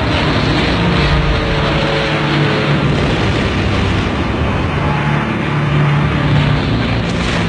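Piston aircraft engine droning steadily over a dense, loud rumble, as a bomber closes in.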